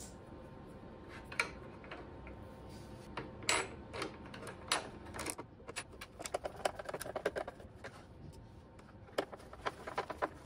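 Hand screwdriver driving a small screw into a bracket inside a motorcycle rear fender: a few separate knocks of parts being handled, then runs of quick, light clicks as the screw is turned in.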